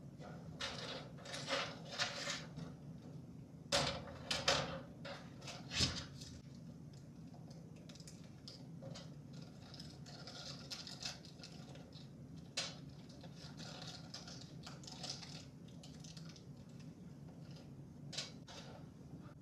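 Handling of computer parts: scattered sharp clicks and knocks of hard parts being set down and fitted, thickest in the first six seconds and sparser after, over a steady low hum.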